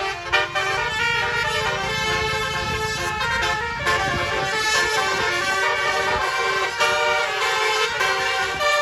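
Tour bus's multi-tone telolet horn (Basuri type) playing a melody of several held notes, over the low rumble of the bus's engine as it drives past.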